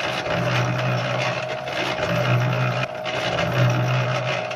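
Harbor Freight cement mixer running with a load of laundry in its drum: a steady motor whine over a hissing churn, with a low hum that swells and drops about once a second as the drum turns.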